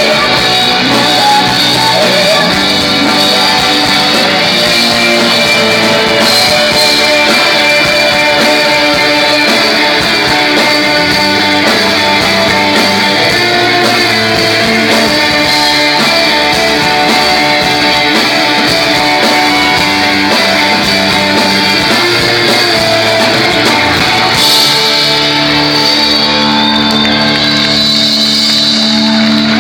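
Live band playing a song with guitars and singing, settling into long held chords near the end.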